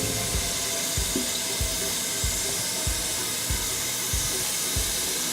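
Kitchen tap running steadily into a pan, filling it with water.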